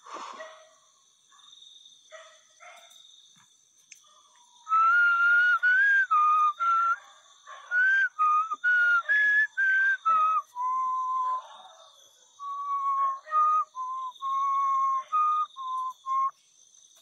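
A person whistling a slow tune: a string of clear held notes stepping up and down in pitch, starting about five seconds in and continuing to the end.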